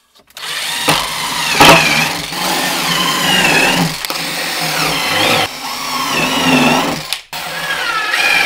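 Cordless drill driving screws into a pine crate lid. The motor whine rises and falls in pitch as the trigger is squeezed and eased, in several runs with short breaks.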